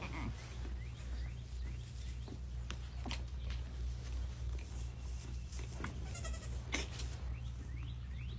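Young goat kids giving a short, high bleat about six seconds in, with scattered light clicks and rustles as they move on straw bedding, over a steady low hum.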